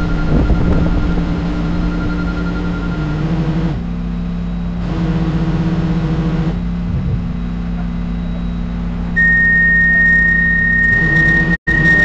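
Heavy construction equipment engines running, a steady low drone whose character changes abruptly several times. A steady high-pitched tone comes in about nine seconds in, and the sound cuts out for an instant near the end.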